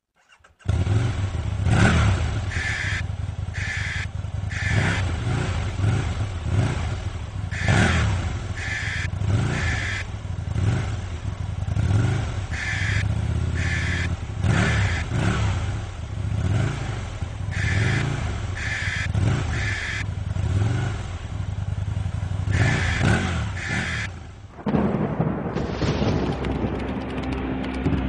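Aprilia Tuono 1000 R's V-twin engine revving, its note swelling and falling over and over. Music takes over about 25 seconds in.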